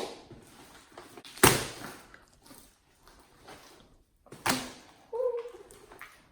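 Thick fluffy slime smacking and popping in three sharp wet slaps, each tailing off quickly, with softer sticky crackling between them.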